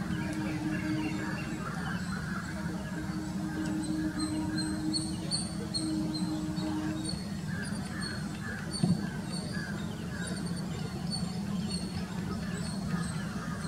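Distant Airbus A320 jet engines at takeoff power, a steady low rumble, with birds chirping repeatedly over it. A brief knock about nine seconds in.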